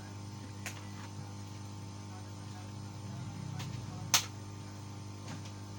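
Steady electrical mains hum with a few faint ticks, and one sharp click about four seconds in.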